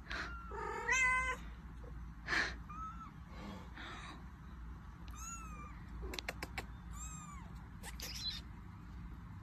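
A tabby mother cat and her small kitten meowing: a louder meow about a second in, then a string of short, high-pitched mews in the second half.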